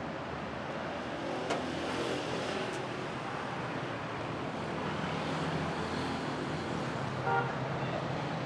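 Steady city street traffic noise, with a short click about a second and a half in and a brief car horn toot near the end.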